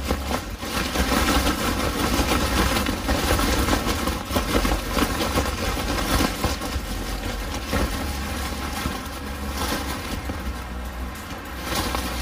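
High wind buffeting a dome tent, heard from inside: the nylon fly flaps and shakes against the poles over a constant rumble of wind, surging and easing in gusts.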